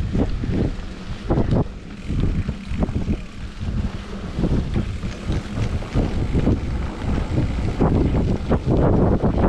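Wind rumbling on the microphone of a moving mountain bike, with irregular thumps and rattles from the bike rolling over a rough, muddy trail.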